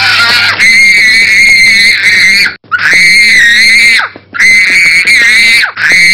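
Young child screaming in a tantrum: repeated long, high-pitched screams with short breaks for breath between them.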